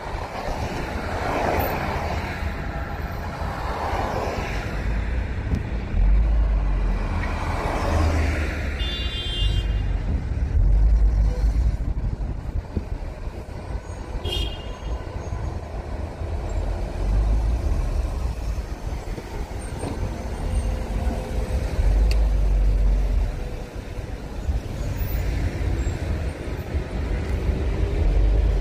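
Road traffic: vehicles passing with a steady low rumble, and two brief horn toots, about a third of the way in and about halfway.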